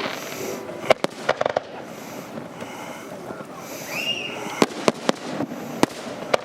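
Fireworks going off: a quick cluster of sharp bangs about a second in, then several single cracks later, over a background of crowd murmur. A brief whistle rises and falls about four seconds in.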